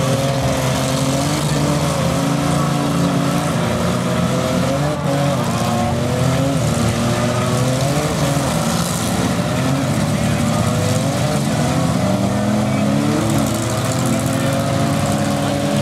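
Several demolition derby minivans' engines revving hard at once, their pitches rising and falling over one another without a break.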